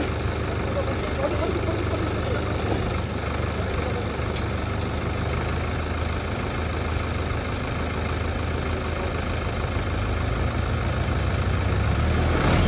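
Diesel tractor engines idling steadily, getting louder over the last couple of seconds as the tractors start to rev to pull the bogged tractor out of the mud.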